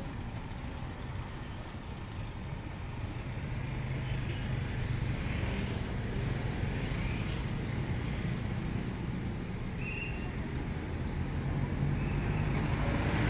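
Steady street traffic rumble, growing a little louder a few seconds in, with a brief high tone about ten seconds in.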